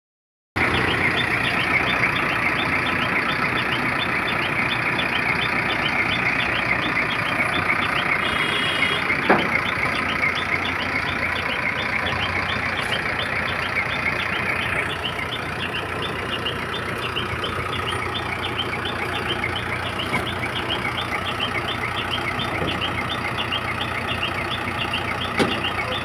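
ACE backhoe loader's diesel engine running steadily, with a fine regular ticking over the engine noise. The sound eases slightly about halfway through.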